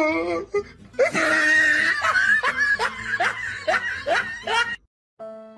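A person laughing hard, a string of quick rising bursts about three a second, cut off suddenly near the end.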